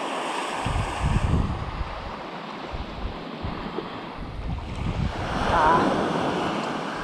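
Small waves breaking and washing up a sandy beach, with wind gusting on the microphone about a second in and the wash swelling louder around five seconds in.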